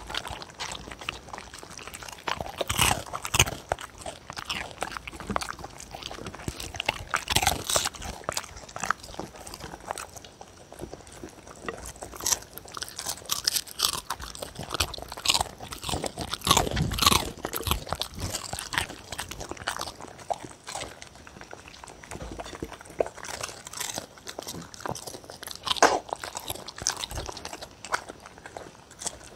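Two dogs eating cereal with pet milk from a wooden bowl: irregular crunching and chewing, with tongues lapping and licking at the bowl.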